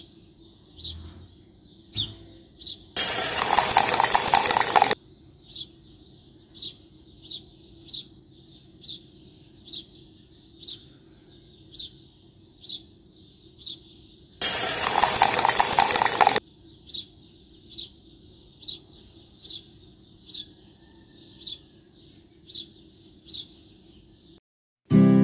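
A small bird repeats a short, high chirp that falls in pitch, roughly once a second, over a faint low hum. Twice, about three seconds in and again about fourteen seconds in, a loud rushing noise lasting about two seconds covers it.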